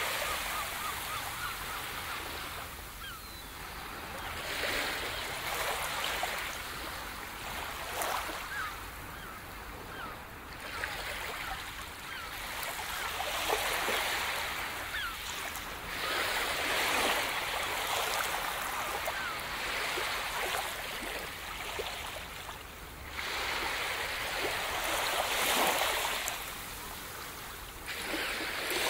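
Sea surf washing up a beach, the hiss of the waves swelling and falling back every few seconds.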